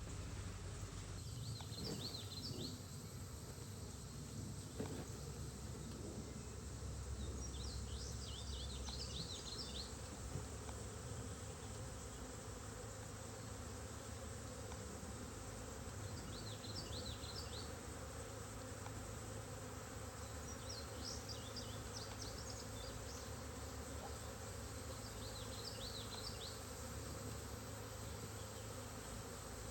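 A large honeybee swarm buzzing as a steady low hum, the bees disturbed while being moved from a bait hive into a bucket. Short bursts of high chirping come and go every four or five seconds over it.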